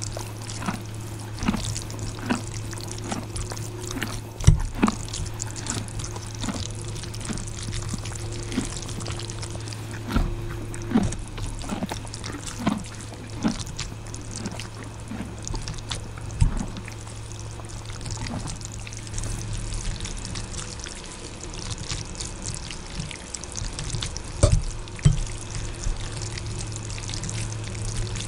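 Close-miked wet mouth sounds of eating spicy ramen noodles: chewing and slurping, with scattered short clicks of the fork on the plate, over a steady low hum.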